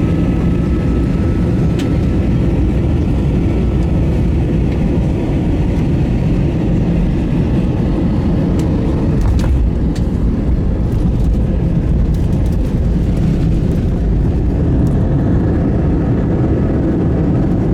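Airbus A321 cabin noise just after landing: a steady, loud low rumble of the engines and the aircraft rolling, with a few light clicks.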